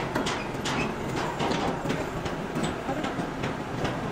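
Metal chain clinking and rattling in quick, irregular clanks as a manual chain hoist is worked to lift a log, over a steady background noise.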